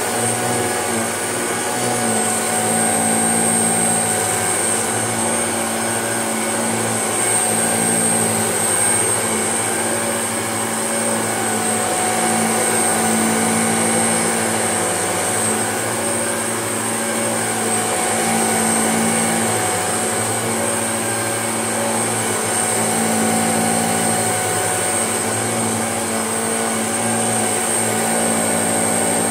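Shark upright vacuum cleaner running steadily as it is pushed back and forth over a carpet mat, a constant high whine over the motor's hum, swelling a little with each stroke.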